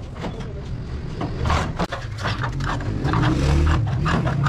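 Hand tin snips cutting thin sheet metal: a run of irregular crunching snips with the sheet rattling, over a low steady rumble that grows louder about three seconds in.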